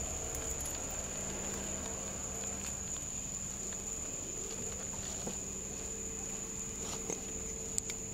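Steady high-pitched chorus of crickets, over a low steady hum, with two faint clicks near the end.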